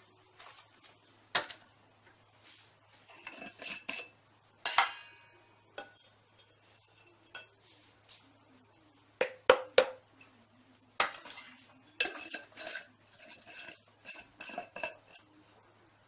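Irregular clinks, taps and knocks of a jar and a ceramic crucible being handled on a table while a powdered mixture is poured from the jar into the crucible. The loudest is a quick run of three knocks about nine and a half seconds in.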